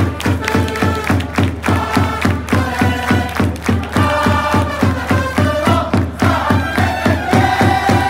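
Japanese baseball cheering section's trumpets playing a cheer song over a fast, steady drum beat, with the crowd in the stands singing along.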